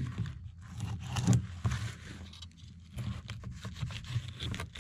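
Fillet knife cutting along a crappie's back: a run of short scratchy strokes as the blade scrapes through the scales and skin.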